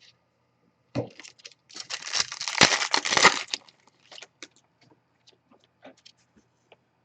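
A foil trading-card pack wrapper being torn open and crinkled, with a dense crackling stretch about two seconds long, followed by scattered light ticks of cards being handled.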